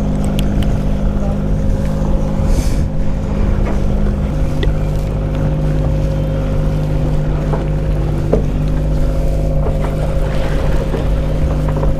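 Boat engine running steadily with a low hum, stepping down slightly in pitch about four seconds in.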